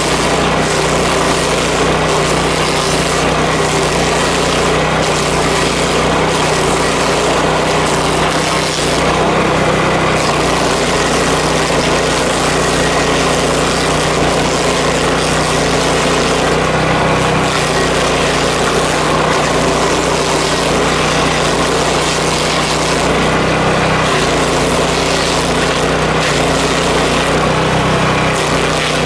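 Power King stump grinder running steadily as it grinds an ash stump, the engine note dipping slightly and recovering every few seconds as the load changes, over a constant hiss of cutting.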